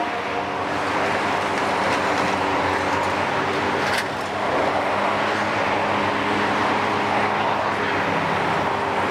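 Kiesel KMC 600 demolition excavator's six-cylinder Isuzu diesel and hydraulics running steadily, with a short sharp crack about four seconds in.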